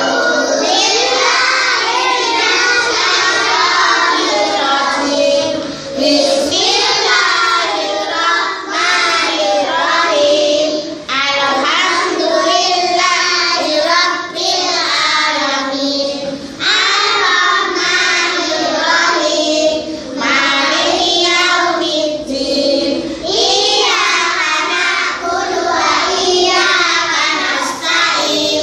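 A class of young children singing together in unison, in continuous phrases with short breaks between them.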